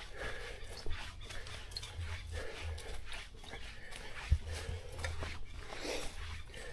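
Hikers' footsteps on a trail, irregular steps over a steady low rumble, with one sharp knock about four seconds in.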